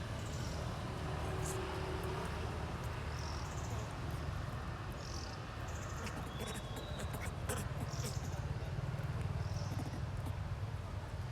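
Short high chirps every second or two over a low steady rumble.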